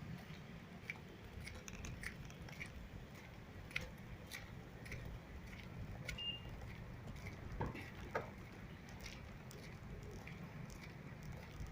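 Faint scattered clicks and taps over a low steady hum.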